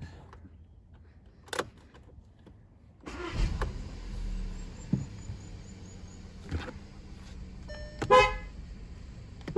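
2016 VW Golf's engine starts about three seconds in and idles, and near the end its horn sounds in two short toots, working again now that the steering column clock spring has been replaced.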